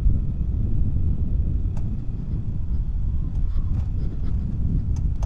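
Steady wind rumble on the microphone of a moving Yamaha NMAX scooter, over the scooter's engine and tyre noise on the road.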